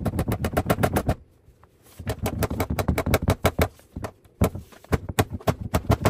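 Rapid runs of sharp knocks, about ten a second, broken by short pauses, as a cable staple is driven into a wooden stud to hold fire alarm cable in a tight spot.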